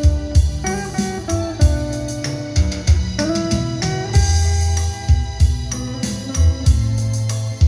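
Music with a beat: low bass thumps under sustained instrumental notes.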